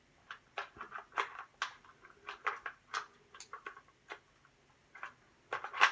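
Plastic smoke alarm being fitted and slid onto its ceiling mounting base: an irregular run of light plastic clicks and scrapes, the loudest near the end.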